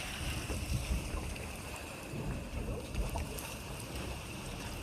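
Hot spring roaring: a steady rushing noise over an uneven low rumble.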